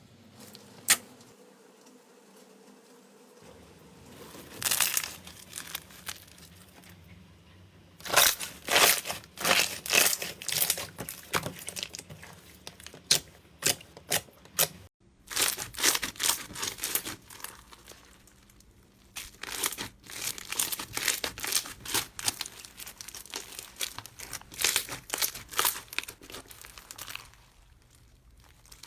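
Slime being squeezed and pressed by hand, giving bursts of crackling and popping clicks with short pauses between handfuls.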